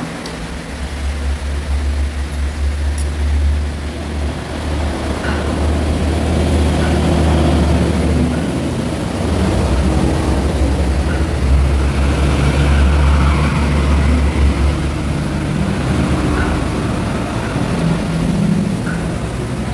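Heavy road traffic passing close by: a deep engine rumble from large vehicles that swells for several seconds, eases, then swells again. A few light clinks of a spoon and fork on a plate sit under it.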